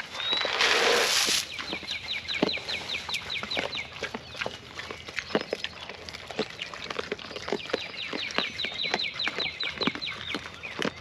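Kunekune pigs eating feed from a pan, with scattered crunching and chomping clicks, and a short rush of noise about a second in. A bird's rapid, repeated high chirping runs twice behind them.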